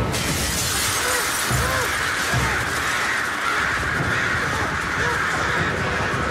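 A great mass of crows cawing all at once over a dense rushing noise, starting suddenly.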